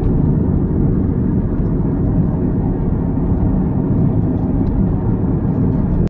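Steady low rumble of road and wind noise from a moving car, stopping abruptly at the end.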